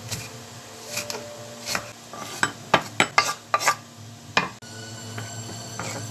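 Kitchen utensils knocking and clinking against pots and dishes: a quick run of sharp knocks in the middle, over a steady low hum.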